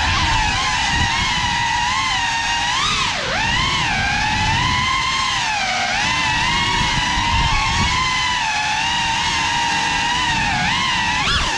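Small FPV drone's motors and propellers whining, the pitch wavering up and down with the throttle and dropping sharply about three seconds in and again near the end.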